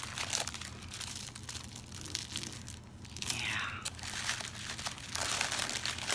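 Small plastic bags of diamond-painting drills crinkling as they are handled, in a run of irregular crackles.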